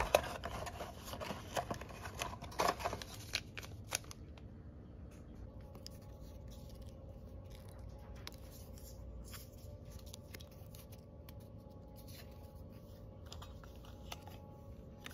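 A paper tea-bag sachet being handled and torn open, with crinkling and sharp clicks for the first few seconds. After that only faint room tone, with a few small ticks as the tea bag is dipped in the mug.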